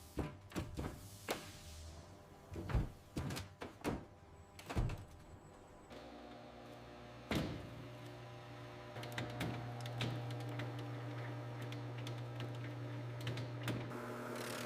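Factory machinery: a scatter of sharp clanks and knocks, then a steady mechanical hum that starts about six seconds in and grows stronger a few seconds later, with one more knock along the way.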